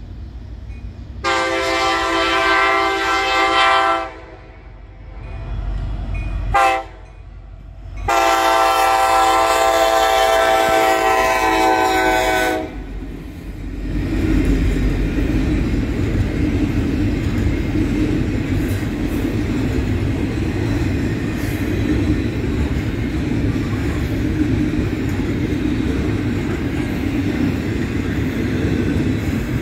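Diesel freight locomotive's air horn sounding a long blast, a short one and another long blast. Then a double-stack container train rolls past with a steady rumble and rattle of wheels on the rails.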